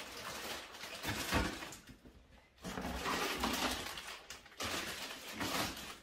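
Plastic bags of romaine lettuce crinkling and rustling as they are handled and packed into a refrigerator, in three spells with short pauses between.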